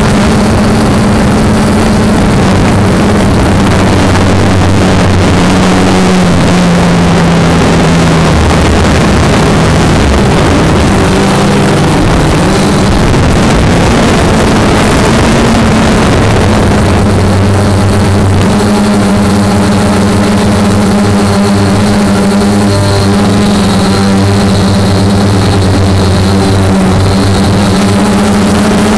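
Motor of the small low-flying aircraft carrying the camera, heard from on board: a loud, steady drone whose pitch wavers and shifts a little now and then, over a rush of air noise.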